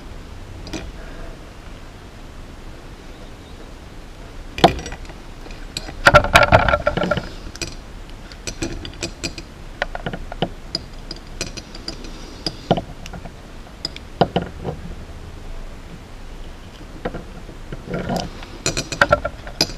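Small metal tools and parts clinking and tapping on a workbench during hand soldering work on a micro quadcopter, with scattered single clicks and a denser burst of clatter about six seconds in and again near the end.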